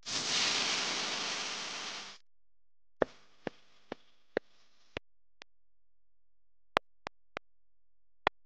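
A loud hiss lasting about two seconds that stops abruptly, then a series of sharp clinks and taps on a glass mixing bowl, some ringing briefly, as flour is tipped in and semolina is spooned in.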